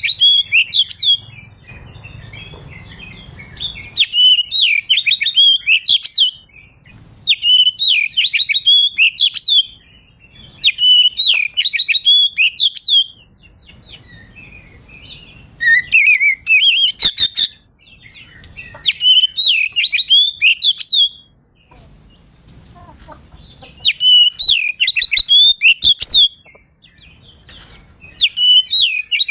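Oriental magpie-robin (kacer) in full, loud song. It repeats phrases of quick, varied chirps and whistles, each about two seconds long, with short pauses between them.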